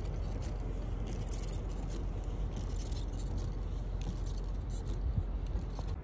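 Steady low outdoor rumble with faint, irregular scratchy ticks over it.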